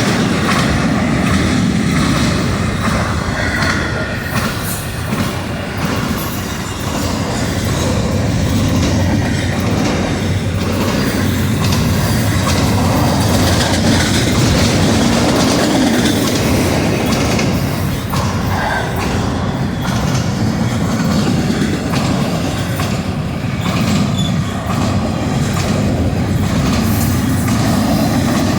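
Union Pacific intermodal freight train rolling past at close range: a steady, loud rumble and rattle of the cars' wheels on the rails.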